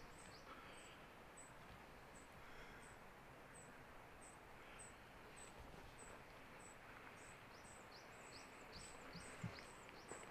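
Faint small bird calling: a series of short, high chirps, about one or two a second, coming faster with quick falling notes near the end.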